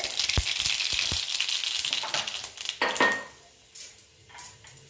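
Mustard seeds spluttering in hot mustard oil in an aluminium kadai: a hiss with sharp pops for about the first three seconds, then a short ringing metal clink, after which the sound drops away to faint.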